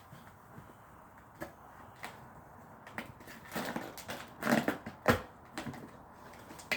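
Gift packaging being handled and opened by hand: scattered rustles and clicks, a louder scratchy burst about four seconds in, then a sharp knock just after.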